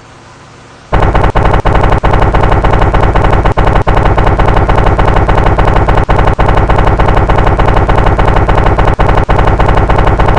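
Two-stroke engine running quietly, then about a second in, an abrupt jump to a very loud, harsh, rapid rattling buzz at a steady high speed, with a few brief dropouts.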